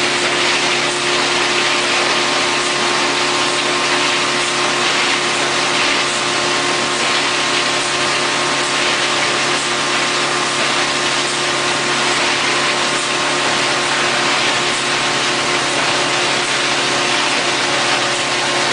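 Industrial machine running steadily: a continuous hiss over a steady hum, with no change in level.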